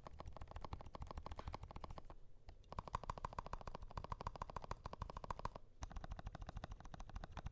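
Fast, continuous typing on a Keebox M0110 mechanical keyboard with lubed Kailh Turbo Brown tactile switches, an FR4 plate and a foam-filled case. It is a rapid run of keystrokes with a short pause a little after two seconds in and a brief break near the end.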